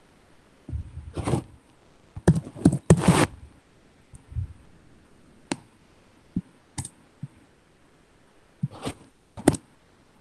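Typing on a computer keyboard, picked up close: irregular clicks and knocks in short clusters of a few keystrokes with pauses between them, some strokes heavier and thumpier than others.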